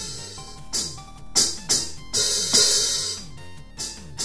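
Hi-hat sounds from a Roland TD-3 electronic drum kit: a string of about five or six hits, a couple of them ringing on like an open hi-hat. The FD-8 pedal is being pressed but the hi-hat stays open unless pushed very hard, which the owner thinks is probably the worn rubber actuator inside the pedal.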